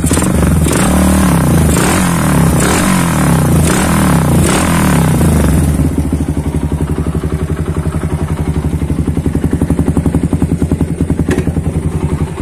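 Suzuki Satria FU's single-cylinder four-stroke engine through a WRX K3 aftermarket muffler freshly repacked with glass wool. It is revved in a series of quick throttle blips, then settles back to idle about six seconds in. The repack is meant to cure a tinny exhaust note and make it mellower.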